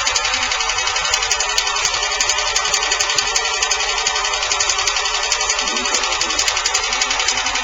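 Engine running with a rapid, even ticking from the valve train: valve tapping (valve knock).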